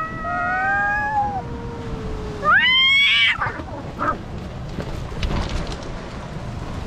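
Two cats caterwauling at each other in long, wavering yowls, one sliding slowly down in pitch, the standoff cry before a fight. About two and a half seconds in, one gives a loud, short rising screech as they lunge and grapple, and scuffling follows.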